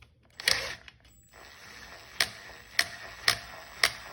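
Hornady cam-lock case trimmer being worked by hand: sharp mechanical clicks, one about half a second in, then four more about every half second from two seconds in.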